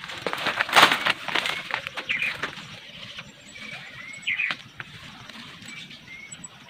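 Rustling and crunching of someone moving through forest undergrowth, loudest about a second in, with a few short chirping bird calls.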